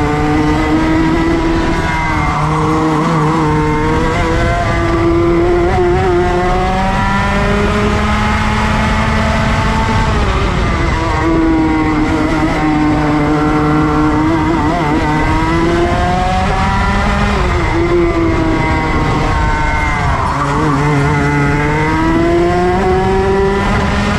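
Racing go-kart engine heard from the driver's seat at full racing pace. It climbs in pitch along each straight and drops as the kart slows for the corners, about four times over.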